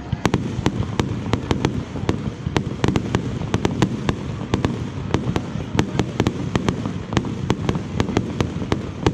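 Fireworks display: a rapid, irregular string of sharp cracks and bangs, several a second, over a steady low rumble.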